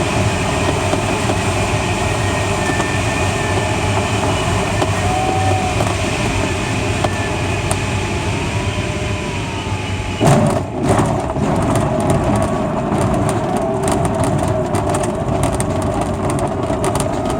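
Steady airflow noise in a Schleicher ASK21 glider's cockpit, with a faint whistle sliding up and down in pitch. About ten seconds in, a sudden jolt is followed by continuous rumbling and rattling as the glider touches down and rolls along the ground.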